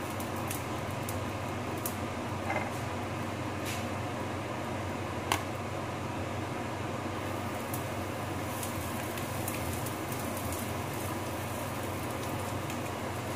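Rice being stirred and tossed in a frying pan with a spatula: a few light clicks and taps of the spatula on the pan over a steady low hum and hiss.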